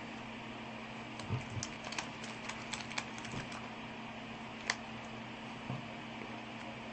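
Homemade slime being handled and squeezed, giving a quick run of small clicks and pops for a couple of seconds and one sharper pop a little later.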